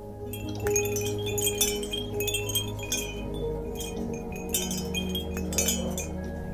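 Metal tube wind chime ringing, its tubes struck irregularly many times over, the tones hanging on and overlapping.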